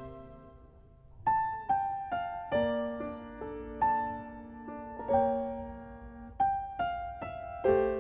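Background music: a soft melody of single piano notes, struck one by one and ringing out, begins about a second in after a sustained chord fades away.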